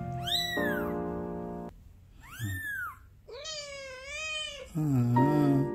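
A very young kitten mewing: two short high-pitched mews, then a longer wavering cry, over background music with held keyboard notes. A lower wavering call follows near the end.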